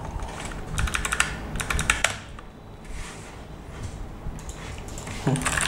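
Typing on an E-Dra EK368W wireless 60% mechanical keyboard with PBT XDA-profile keycaps. Quick runs of key clicks for about two seconds give way to a few scattered keystrokes, and fast typing starts again near the end.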